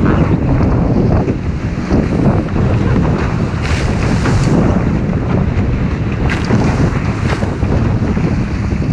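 Heavy wind buffeting the microphone and rushing water as a Diam 24 trimaran sails fast in a strong breeze. Bursts of spray hit about four seconds in and twice more a few seconds later.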